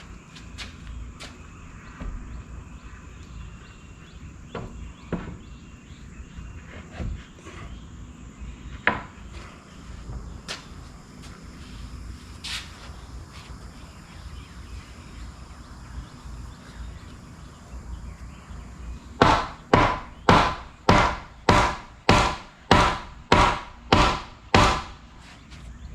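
Scattered light knocks and handling sounds on wood, then a hammer driving into a wooden framing board: about a dozen steady blows, roughly two a second, starting about three-quarters of the way in.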